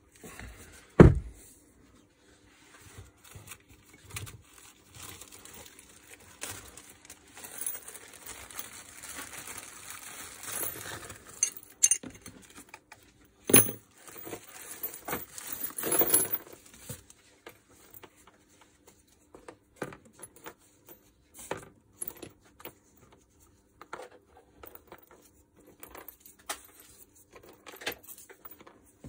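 Workbench handling of an electric motor's metal parts: a heavy thump about a second in, scraping and rustling, then scattered clicks and clinks of small metal screws and bolts being picked through.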